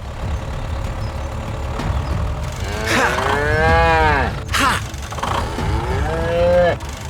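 Two long, drawn-out moo-like calls, each rising then falling in pitch, over a steady low rumble.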